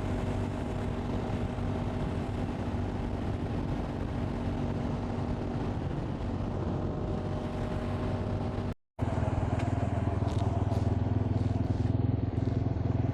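Motorcycle engine running steadily at an even pitch. It drops out briefly about nine seconds in, then returns louder and deeper.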